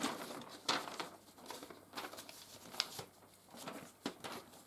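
A large folded paper instruction sheet being opened out and handled, with irregular rustling and crinkling of the paper.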